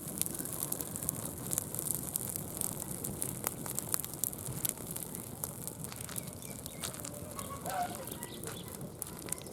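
Open wood fire crackling and hissing, with sharp irregular pops throughout. A faint bird chirp comes about eight seconds in.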